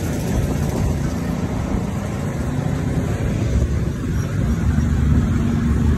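Steady low rumble of motor traffic on the street, with motorcycle engines running nearby.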